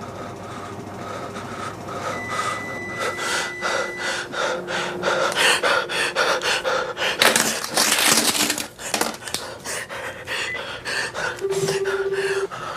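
A person panting heavily, the breaths coming louder and faster, with a loud rush of noise about seven seconds in that lasts over a second. Faint steady tones run underneath.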